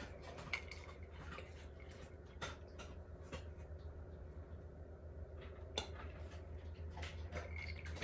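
Faint scattered clicks and small ticks of a plastic boba cup and wide straw being handled and sucked on through a straw clogged with tapioca pearls, over a low steady hum.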